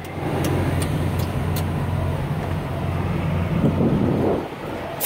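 Heavy diesel truck engine idling with a steady, even low hum, and a few light ticks over it.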